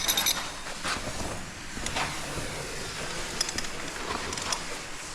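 Caving rope running through a rappel device on a long descent: a steady hiss of rope through the brake, with a few metallic clicks and scrapes of gear.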